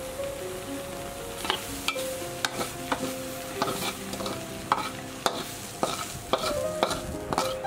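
Metal spatula stir-frying silkworm pupae in a metal pan: sharp scrapes and clinks of the spatula on the pan every half second to a second, over a steady sizzle.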